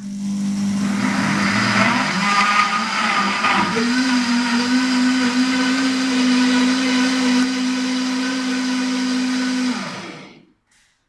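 McLipha high-speed cold-and-heat vacuum blender motor running under load, chopping chunks of broccoli, tomato and carrot in liquid. About four seconds in the motor's pitch steps up and steadies as the vegetables break down into a smooth purée. It then winds down and stops near the end.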